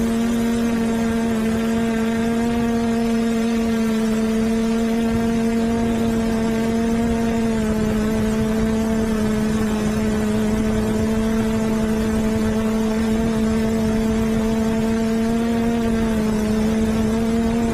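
Electric motors and propellers of a DJI quadcopter whining steadily in flight, heard from a camera mounted on the craft, with a rush of air behind it. The pitch holds nearly level, shifting slightly about halfway through and again near the end.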